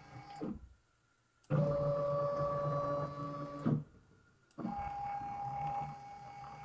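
Stepper motors of a DIY CNC router driving its carriage in short powered moves. Each move is a steady multi-tone whine that drops in pitch as it stops. One move ends about half a second in, a louder one runs from about 1.5 to nearly 4 seconds, and another starts near 4.5 seconds, with near-silent pauses between them.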